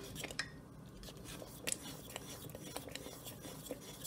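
A spoon stirring thick, creamy rice pudding in a pot: faint scraping with scattered light clicks of the spoon against the pot, one a little louder nearly two seconds in.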